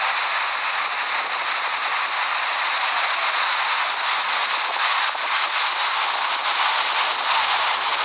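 Bahuti Waterfall in full monsoon flow: a steady rushing hiss of falling water with little low rumble.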